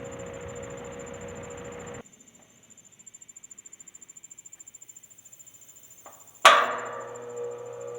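Wizard window box fan with a rebuilt motor on new bearings: its running noise cuts off abruptly about two seconds in, leaving only a faint rapid pulsing. About six and a half seconds in comes a sharp loud click of the switch, then the motor hums as it starts and begins to speed up.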